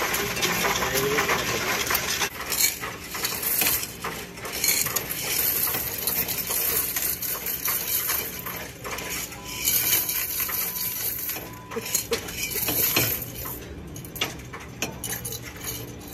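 Loose coins poured from a glass jar clattering into a Coinstar coin-counting machine, a continuous jingling rattle of many coins as the machine takes them in and counts them.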